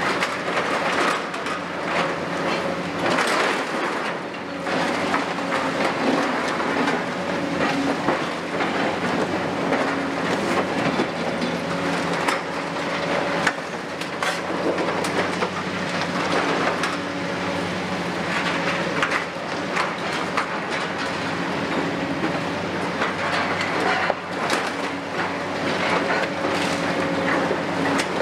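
Doosan DX255LC-5 excavator's six-cylinder diesel running under load with a steady drone, while its demolition grapple clatters and crunches through a pile of concrete and brick rubble with frequent irregular knocks.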